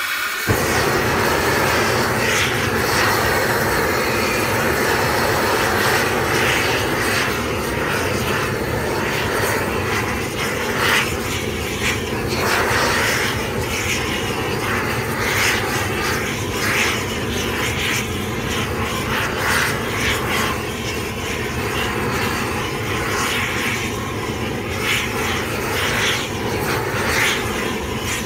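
Large torch flame catching with a sudden burst about half a second in, then burning steadily with a loud, rushing roar that flutters slightly as it plays over a basketball.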